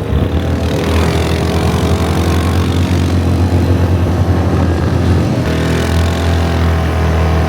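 A motor vehicle's engine running steadily with a strong low hum, its pitch shifting slightly about five and a half seconds in.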